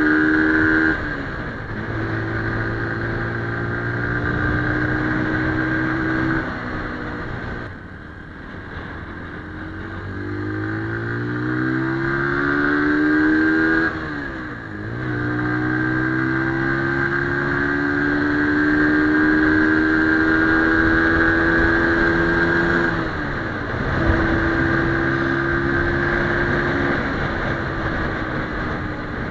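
Brixton BX 125 R's single-cylinder 125 cc engine pulling hard through the gears at road speed. Its pitch climbs and then drops at each upshift, about five times. Around eight seconds in the revs and volume fall off briefly before climbing again, all over a steady rush of wind on the microphone.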